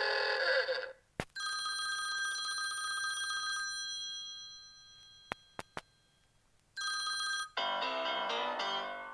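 A string of smartphone ringtone and alert sounds: a short chime, a click, then a bell-like tone that rings out and fades over about two seconds. Three quick clicks follow, then another brief chime and a fast run of melodic notes near the end.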